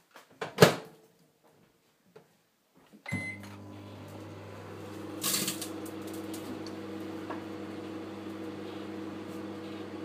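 A microwave oven door shuts with a loud thud, then after a short pause a beep and the microwave starts running with a steady hum. A brief crackle comes about five seconds in.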